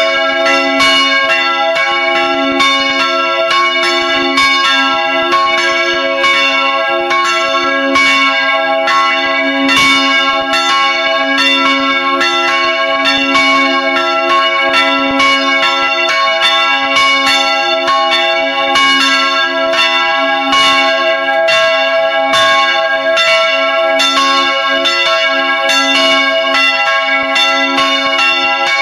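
Several swinging church bells ringing together in a full peal, heard close up inside the bell chamber: clapper strikes follow one another in a quick, uneven rhythm over the steady ringing tones of the bells.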